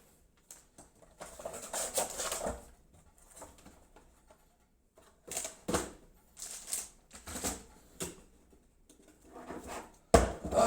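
Irregular rustling and clicking of parts and packaging being handled during a PC build, with a sharp knock near the end.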